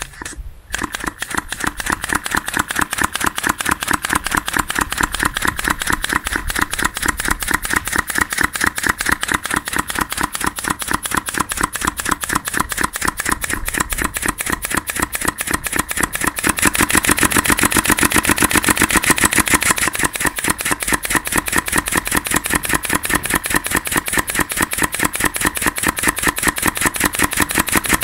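3D-printed V-twin compressed-air engine running, its quick exhaust valves cracking as each cylinder vents: a rapid, even string of sharp pops. The pops grow louder a little past halfway.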